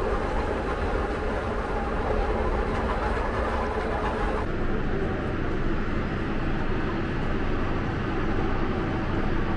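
Steady low rumble of a vehicle in motion. About four and a half seconds in, the higher hiss drops away abruptly while the rumble carries on.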